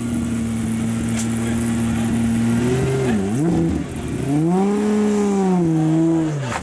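Aston Martin Vulcan's naturally aspirated 7.0-litre V12 held at steady revs, then blipped once about three seconds in. Near the end it gives a longer rev that climbs and falls away.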